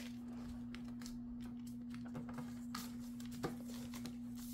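Soft rustles and creases of printer paper being folded by hand: a few faint, brief crinkles over a steady low hum.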